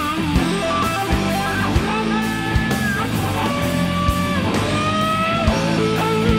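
Live blues-rock band: an electric guitar plays a lead solo of held, bent notes with vibrato, over bass and a steady drum beat.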